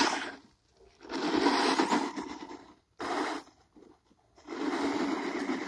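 Hart 20-volt battery RC truck's electric motor running and its tyres spinning on loose dirt in short throttle bursts, each a second or so long with quiet gaps between: one ending just after the start, one about a second in, a brief one near the middle and another toward the end.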